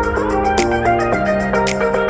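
Background music: a melodic instrumental track with a steady beat and notes changing about every half second.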